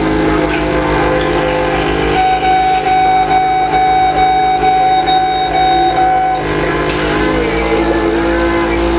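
Electric power percussor buzzing steadily with a pulsing low hum during mechanical chest percussion for airway clearance, with film soundtrack music playing along. A held high note stands out from about two seconds in until about six and a half seconds.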